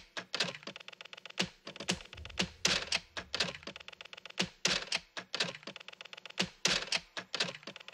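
Flamenco percussion: sharp claps and clicks in a loose rhythm, about three to four a second, with a few heavier strikes, before any singing or instruments come in.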